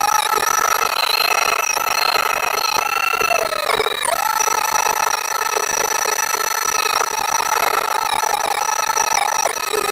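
Cat HM210 mulcher head on a Cat 309CR excavator spinning with a loud, high whine, its pitch dipping briefly about a third of the way in and again near the end.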